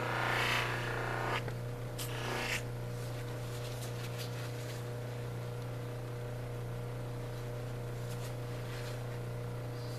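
Lapidary polishing machine running with a steady low hum, its compressed felt wheel charged with cerium oxide. A labradorite cabochon pressed to the spinning wheel gives a hissing rub for about the first second and a half and again briefly around two seconds in, then the motor runs on alone.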